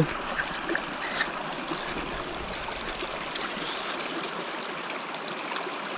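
Shallow stream water rushing steadily, running over and through a small aluminium gold sluice box.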